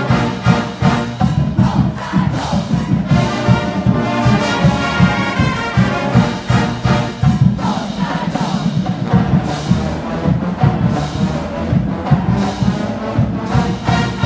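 College marching band playing a brass tune, sousaphones and horns over a steady drum beat.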